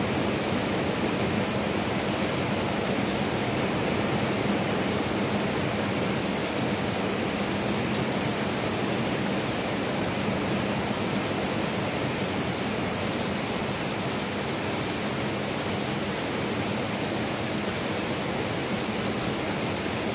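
Heavy thunderstorm rain falling in a steady, even hiss, with no thunderclaps.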